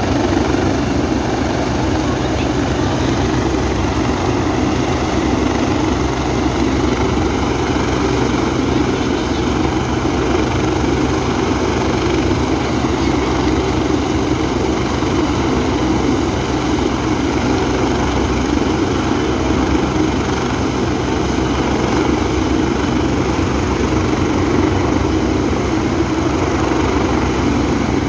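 Large twin-turbine helicopter running on the ground with its rotors turning: a loud, steady turbine whine and rotor noise that holds even and unchanging throughout.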